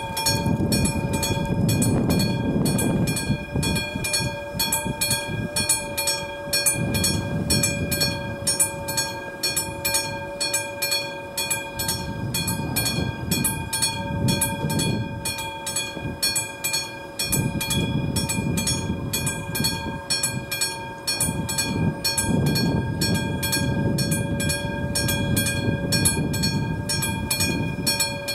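Mechanical warning bell of an AŽD 71 level-crossing signal ringing with rapid, even strikes, its ring held as a steady tone. The bell means the crossing is closed for an approaching train. Gusts of wind buffet the microphone now and then.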